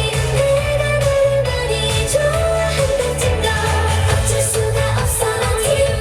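K-pop song with female vocals singing over a steady bass beat, played loud through a concert sound system.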